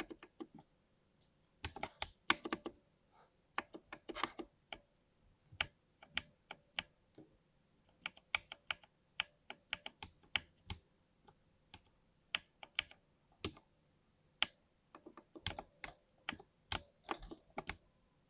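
Typing on a 60% mechanical keyboard with lubed switches: irregular runs of quick keystroke clicks, broken by short pauses.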